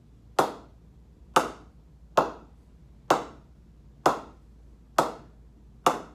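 A new SG English willow cricket bat being struck repeatedly with a cricket ball to test its ping: seven sharp, ringing knocks about a second apart. The ping is lively, which the owner calls unreal, though the blade feels a little hard.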